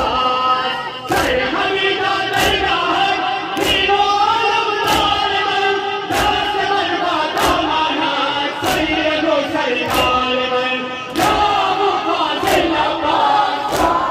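A large crowd of men chanting a mourning lament (noha) together, with loud unison hand strikes on their chests (matam) falling in an even beat about once every 1.25 seconds.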